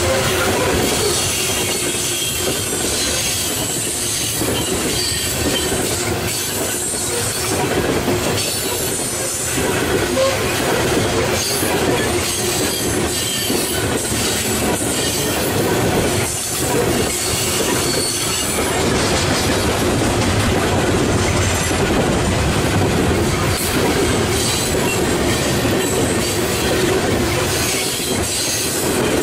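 Loaded coal train's open-top cars rolling past on curved track, steel wheels squealing steadily against the rails with some clacking over the rail joints.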